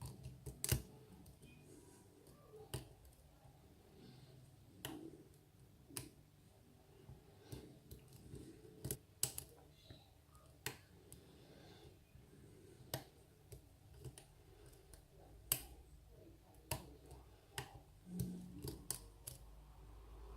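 Faint, irregular ticks and clicks of a lock pick working the pins of a Steelpinnings challenge lock held under pry-bar tension, with sharper clicks as pins set.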